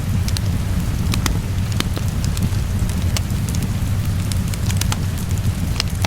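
Wood fire crackling with scattered sharp pops over a steady low rumble and the even hiss of rain falling.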